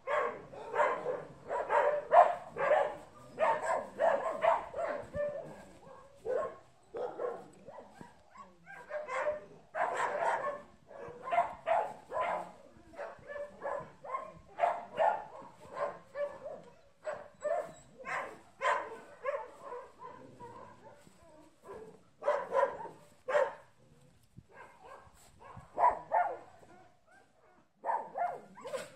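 A dog barking repeatedly in runs of quick barks, thickest in the first few seconds, then in shorter runs with pauses between them.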